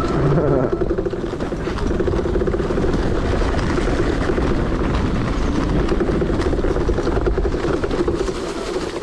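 Kickstand of a DIY 72-volt electric motorcycle rattling continuously as it rides over a bumpy dirt trail, over a low rumble of tyres on the ground.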